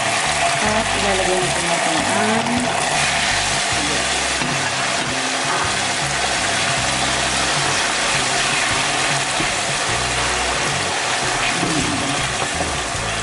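Hot cooking oil sizzling steadily in a pan, with garlic, carrot slices and dried fish (tuyo) frying in it. Background music with low held notes plays underneath.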